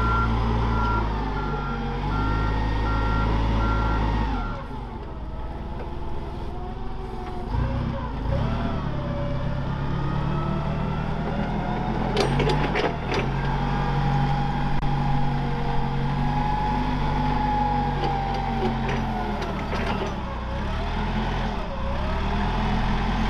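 Clark forklift's engine running and being throttled up and down as it manoeuvres, its reversing beeper pulsing for the first four or five seconds. A few sharp clicks or knocks come about twelve seconds in.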